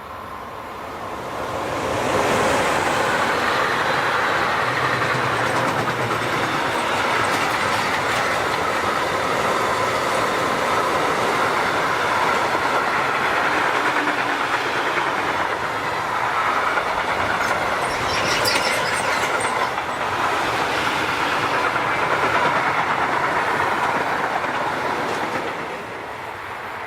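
A train passing by: the steady rumble and clatter of its wheels on the rails builds up over about two seconds, holds, and eases off near the end.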